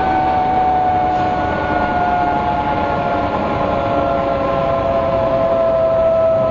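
MCW Metrobus running on the road with its differential whining: a prominent steady whine that slides slowly down in pitch, over the Gardner diesel engine's rumble and road noise.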